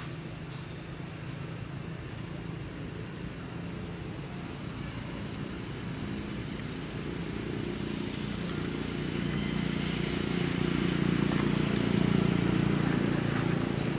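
An engine humming steadily with a low, even drone, growing louder through the second half and loudest near the end.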